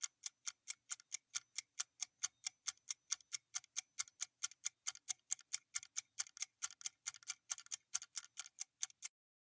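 Countdown-timer sound effect: evenly spaced clock ticks, about four or five a second, that stop shortly before the end.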